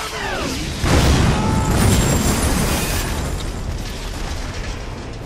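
A falling whistle, then a big explosion about a second in, its rumble slowly dying away over the next few seconds.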